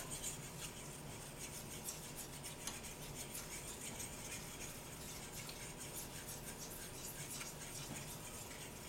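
A fork stirring a thick flour-and-oil roux in a cast iron skillet: faint, repeated scraping and light ticks of the metal tines against the pan.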